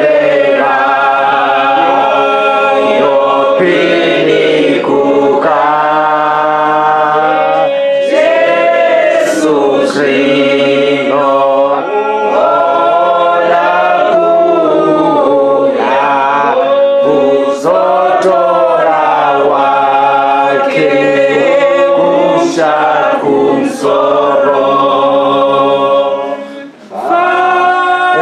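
Group of voices singing a hymn unaccompanied, in long held notes with no instruments, with a short break between lines near the end.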